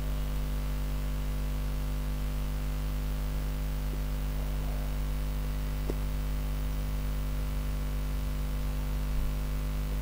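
Steady electrical mains hum with a hiss underneath, from the recording setup, with a faint tick or two around the middle.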